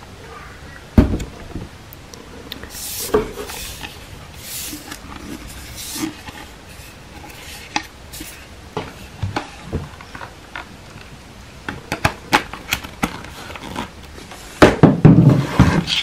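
Plastic parts of a Xiaomi Mi G10 stick vacuum and its cardboard packaging being handled: scattered clicks and knocks, a few short rustles, and a louder clatter near the end.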